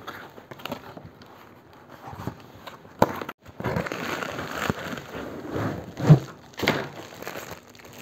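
Cardboard shipping box being opened and handled: scraping and rustling of the cardboard flaps, with a sharp click about three seconds in and louder knocks around six seconds.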